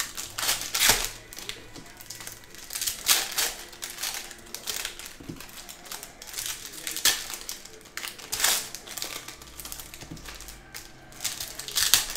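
Foil trading-card pack wrappers crinkling in irregular bursts as the packs are handled and opened and the cards slid out.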